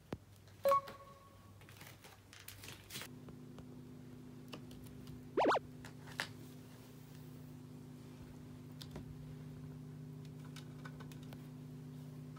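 A pet water fountain's small electric pump hums steadily from about three seconds in. Over it come light taps and scratches of a cat's paw on the plastic fountain and in the water. There is a sharp click with a brief ringing tone near the start, and a short, loud, higher-pitched sound about midway.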